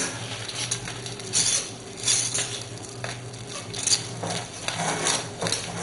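Wire whisk stirring thick semolina pudding in a saucepan: irregular scraping strokes and light clinks of the wires against the pot, over a low steady hum.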